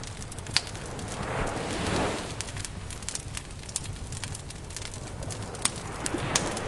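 Campfire crackling steadily with scattered sharp pops, over a soft rushing swell that rises and fades about two seconds in and rises again near the end.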